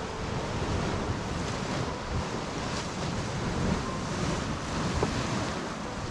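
Steady rushing, surf-like noise of the Churning Caldron hot spring's pool churning and boiling, mixed with wind buffeting the microphone.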